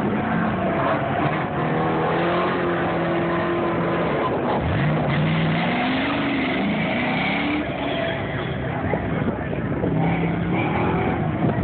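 Pickup truck engine revving up and down as the truck runs an autocross cone course, heard from the sidelines. Its pitch holds, then falls and climbs again several times, with a sharp rise about four and a half seconds in.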